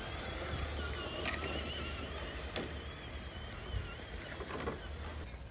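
Electric motor and gear drive of an RC crawler truck whining, the pitch wavering up and down, with a few light clicks.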